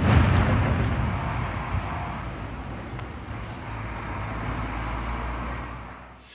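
Aerial firework bursting with a sharp bang at the start, followed by a low rumble with faint crackles that slowly fades away.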